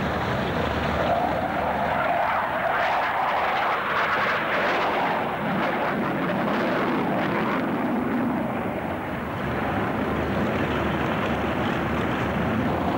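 Tornado F3 jet fighter's twin RB199 turbofan engines: a steady rushing jet noise as the aircraft flies its display, rising in pitch a few seconds in and then dropping lower as it moves away.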